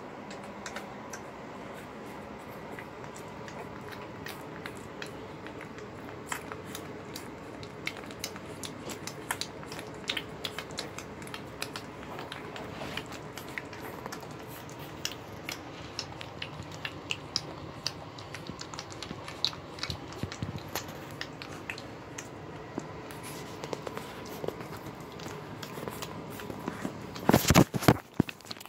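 Newborn Boxer puppies suckling at their mother's teats: many small wet smacks and clicks, scattered irregularly, over a steady background hum. A burst of loud knocks comes near the end.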